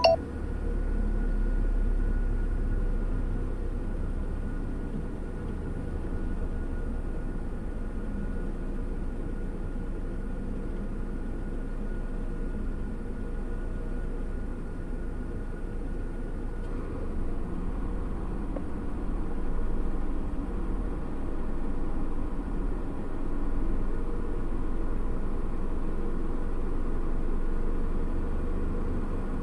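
Steady low rumble of an idling car engine, heard from inside the cabin.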